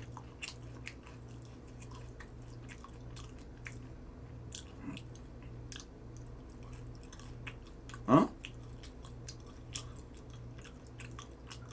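Crispy Goobne Gochu Basasak fried chicken being bitten and chewed close to the microphone: scattered small crunches and wet clicks, with a short vocal sound about eight seconds in.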